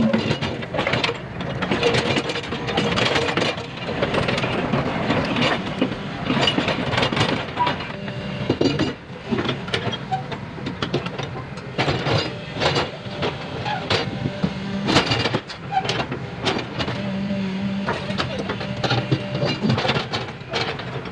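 Crawler excavator's diesel engine running under load, with repeated scraping, clanking and knocking as its steel bucket breaks up and drags slabs of broken road pavement.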